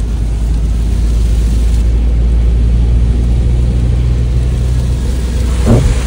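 Mazda3 driving on a mountain road, heard from inside the cabin: a steady low rumble of engine and tyres, with the engine hum rising clearer after a second or so and one short louder sound near the end.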